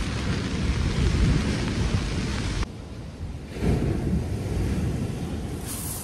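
Strong wind buffeting the microphone in a rain squall, a heavy rumble with the hiss of rain over it. It drops away abruptly a little under halfway through, then a weaker gust rises and fades.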